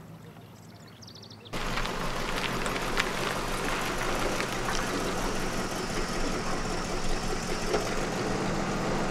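A car's engine running with road noise, coming in abruptly about a second and a half in as a steady rumble with scattered small clicks. Before that there is only a faint low hum with a few high chirps.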